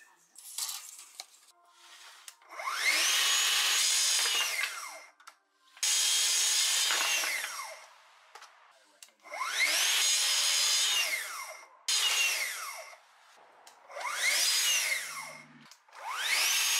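Track saw cutting MDF boards. The motor whines up to speed, runs through the cut and winds down, about six times in a row, with quiet handling between the cuts.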